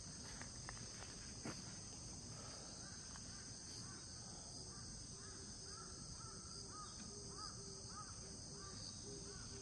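Faint outdoor insect chorus, a steady high trill of crickets, with a bird calling in a quick run of short repeated notes from a few seconds in.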